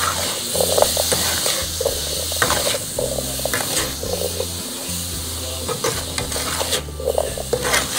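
Lotus seeds stirred with a metal spatula in a pan of boiling sugar syrup. The syrup sizzles steadily while the spatula scrapes and pushes the seeds across the pan in short strokes every second or so, as the syrup boils down toward caramelizing.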